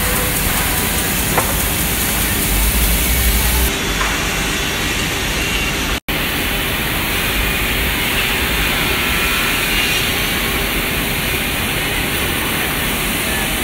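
Woodmaster WM-B2500 CNC band saw running, its blade cutting through thick glued-up wood blanks with a steady, noisy hiss. The sound breaks off for an instant about six seconds in.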